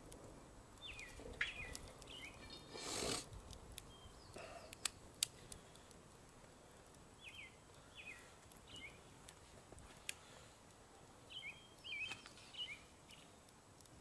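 Small birds chirping in short downward-sweeping calls, in three bursts, over the crackle of a wood fire that gives a few sharp pops. A brief rush of noise comes about three seconds in.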